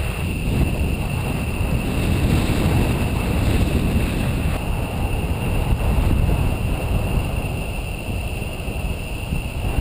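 Wind buffeting a camera microphone during paraglider flight: a steady, fluctuating low rumble.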